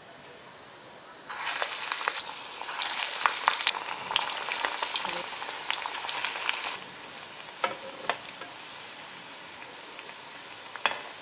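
Spinach-and-lentil vadai dropped into hot oil and deep-frying: loud sizzling and crackling begins suddenly about a second in, surges again as more go in, then eases to a steadier, quieter sizzle about two-thirds of the way through, broken by a few sharp clicks.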